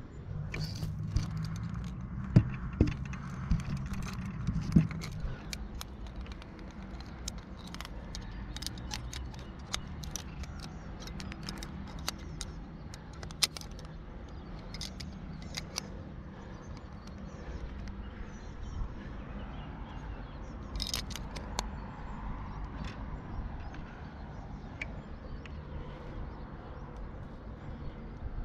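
Metal climbing gear, carabiners and quickdraws on a harness, clinking and jangling as a climber moves up the rock, with scattered taps and scrapes. A few louder knocks come in the first five seconds.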